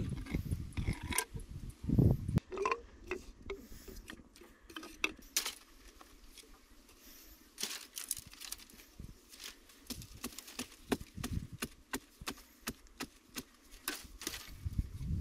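Irregular sharp clicks and knocks of bamboo and thin dry sticks being handled and knocked together. A few dull thumps come in the first two seconds, the loudest about two seconds in.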